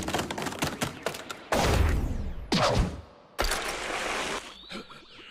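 Anime fight sound effects: a rapid run of sharp hits, then three louder rushing blasts about a second apart.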